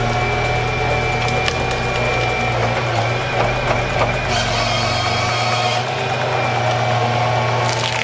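A forestry harvester's diesel engine runs steadily with a hydraulic whine as the crane swings the harvester head onto a standing tree. A higher whine comes in for about a second and a half past the middle. Near the end the sound changes sharply as the head's saw cuts through the trunk.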